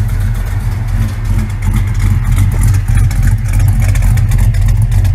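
LS1 5.7 L V8 of a 2004 Pontiac GTO running at idle, loud and deep, with a freshly installed Texas Speed cam, Pacesetter headers and a catback exhaust; the owner calls it pretty rowdy.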